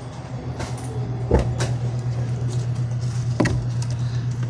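A steady low hum from a store checkout counter, with a few sharp clicks and knocks from items being handled and rung up, about a second in and again past three seconds.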